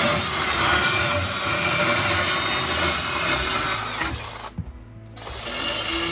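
Small power saw running and cutting through wood. It stops briefly about four and a half seconds in, then starts again.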